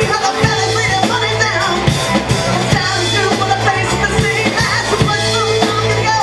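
Live rock band playing loudly: a woman singing over electric guitar, electric bass and a drum kit.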